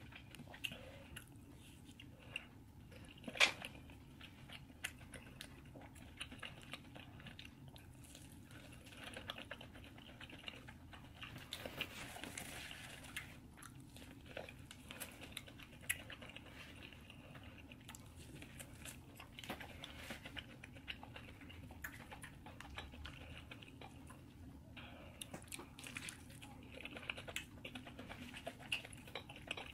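Close-miked eating: chewing, lip smacks and soft crunches of crumb-coated food, with many small scattered clicks and one sharper click about three and a half seconds in.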